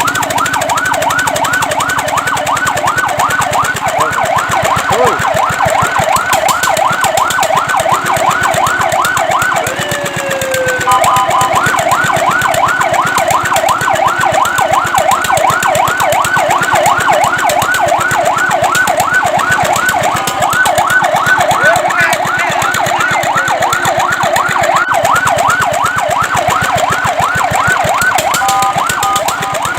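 Fire truck siren sweeping rapidly up and down in pitch, about four cycles a second, with a brief break about ten seconds in before it resumes.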